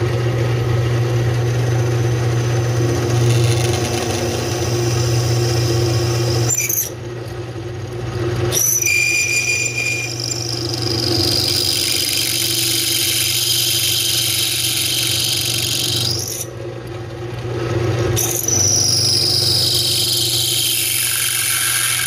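Benchtop drill press running with a twist bit cutting through a steel strap backing plate. A steady motor hum runs underneath, and the cutting gives off a high-pitched squeal in two long stretches in the second half, each falling in pitch.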